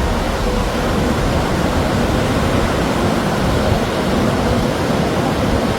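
Steady rush of monsoon surf and wind, an even noise with a rough, fluttering low rumble.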